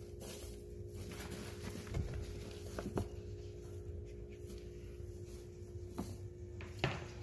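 A few faint taps and rustles over a steady low hum, as hands search through the enclosure's coco husk substrate.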